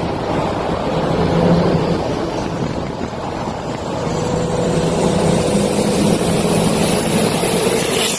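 A car driving at a steady speed: a steady engine drone under heavy road and wind noise.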